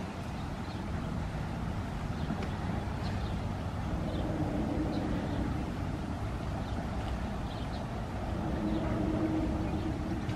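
Steady low rumble of a distant motor engine, with a faint hum that swells twice, about four seconds in and again near the end.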